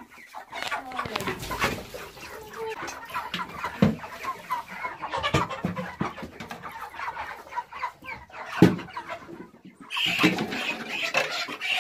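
A flock of chickens clucking, with a few sharp knocks among the calls, the loudest about two-thirds of the way through.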